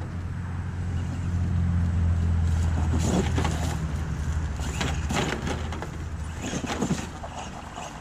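MST MTX-1 RC monster truck's Dynamite 3000kV electric motor and drivetrain humming steadily as it crawls up a tree stump, loudest in the first few seconds and easing off later. Tyres scrape and crunch on the stump a few times in the middle.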